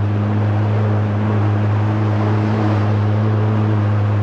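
2017 Kawasaki SX-R 1500 stand-up jet ski's four-stroke four-cylinder engine running at steady revs, a loud even hum under a steady hiss.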